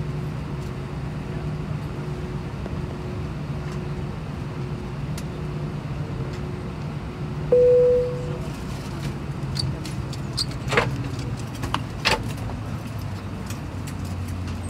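Steady cabin hum inside an Airbus A320 after landing. About halfway through, a single cabin chime sounds. Scattered clicks and rattles of seatbelt buckles and passengers' belongings follow.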